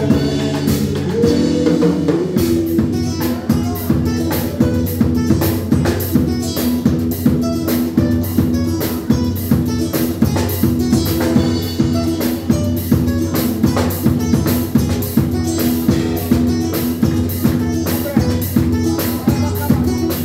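Live band playing: a drum kit keeps a steady beat under a guitar.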